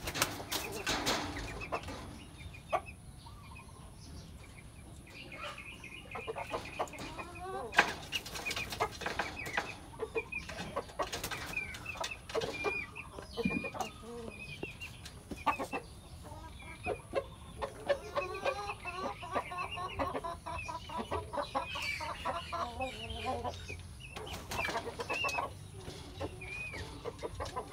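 Cuban-breed chickens clucking on and off in short, repeated calls, with a few sharp sudden sounds, the loudest about eight seconds in.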